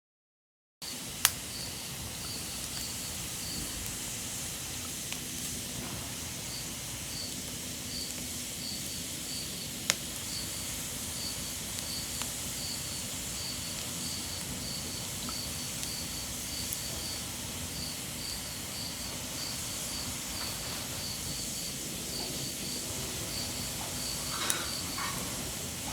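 Outdoor ambience with an insect chirping in a steady, repeating high-pitched pulse over a background hiss, and two sharp clicks, one near the start and one about ten seconds in.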